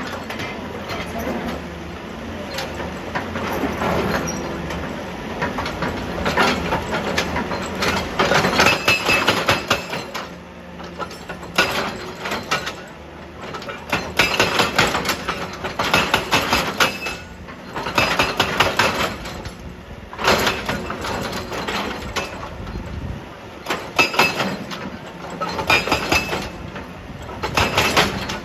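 Excavator working on stone, with its engine running under repeated loud, rattling bursts that come about every two seconds.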